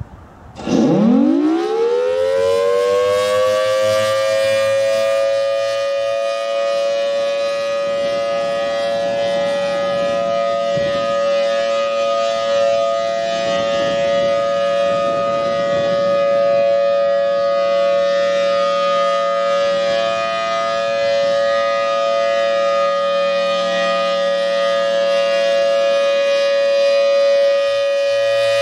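Federal Signal Thunderbolt 1000T outdoor warning siren starting up: about a second in its pitch climbs fast, then settles within a few seconds into a steady, piercingly loud alert tone that holds.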